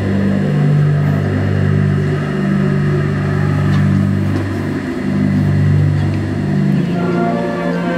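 Marching band music: deep sustained low notes that change pitch about every two seconds, with higher brass chords coming in near the end.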